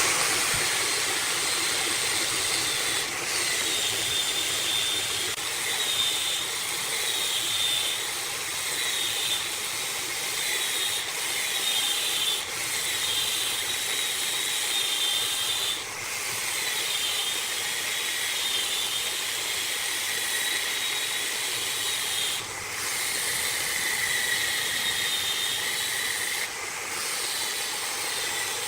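Wood being worked on a running wood lathe: a steady hiss with a wavering high whine, broken by short breaks every couple of seconds.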